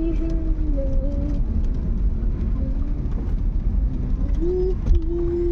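Car running on the road, a steady low rumble heard from inside the cabin, with faint wavering tones over it and a held tone near the end.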